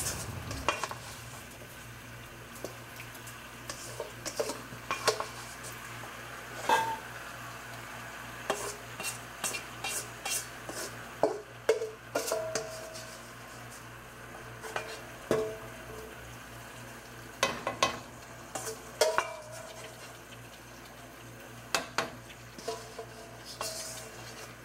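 A spoon clinking and scraping against cookware as chopped bell peppers and onions are spooned into a pot of chicken: many short, irregular clinks, a few of them ringing briefly.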